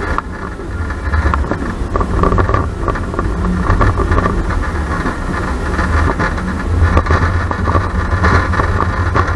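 Family roller coaster train running along its steel track, heard on board from the rear car: a steady low rumble of the wheels with rattling and clatter throughout.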